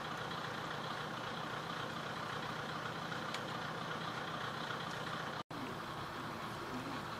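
The DMH17B diesel engine of a stationary KiHa 104 (ex-JNR KiHa 10) railcar idling steadily. The sound drops out for an instant about five and a half seconds in, at an edit, then carries on.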